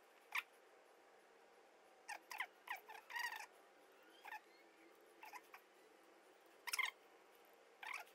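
Faint short squeaks and light clicks, about a dozen scattered through, from wires and a screwdriver being worked at a motorcycle battery terminal while a wire loop is fitted under the terminal washers.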